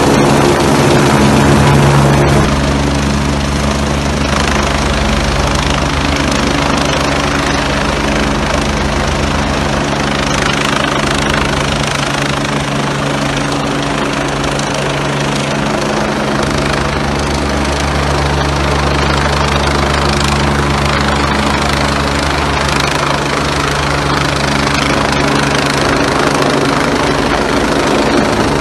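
Fire-and-rescue helicopter hovering close overhead during a winch rescue: steady, loud rotor and turbine noise with a low, even beat of the blades.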